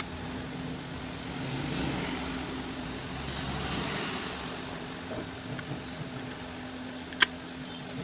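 Steady low hum under background noise that swells and fades twice, like passing road traffic, with one sharp click near the end.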